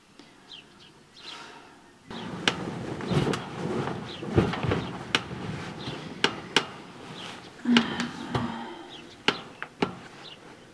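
Bedclothes rustling as a person turns over and gets out of bed, with a few sharp knocks and clicks from the bed and the movement. Birds chirp outside the whole time, and about three-quarters of the way through there is a brief low hum.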